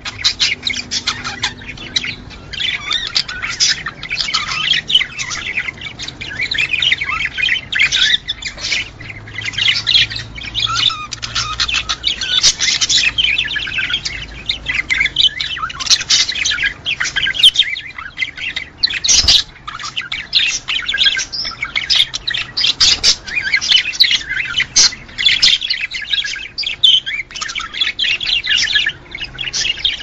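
Budgerigars chattering and warbling in a continuous stream of fast, overlapping chirps.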